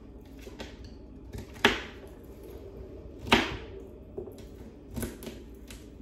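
Kitchen knife chopping through celery stalks onto a wooden cutting board: three sharp chops about a second and a half apart, with a few lighter taps between.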